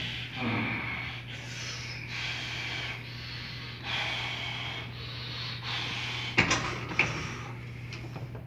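Heavy, forceful breathing through a set on a Nautilus leg press machine. Near the end come two sharp clanks, half a second apart, as the weight stack is set down, over a steady low hum.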